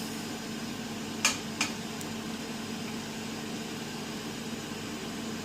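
A steady hum with a constant low tone, with three light clicks between one and two seconds in.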